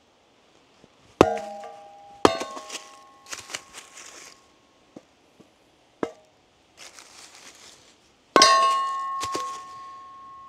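Small sledge maul striking a metal kindling splitter to split wood into kindling: four ringing metal clangs, the last the loudest and ringing on for about two seconds, with lighter knocks and rattles between.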